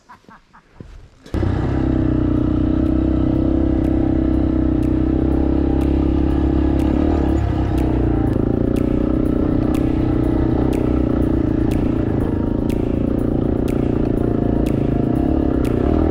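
Yamaha XT250's single-cylinder four-stroke engine running at steady revs while the bike is ridden, starting abruptly about a second in.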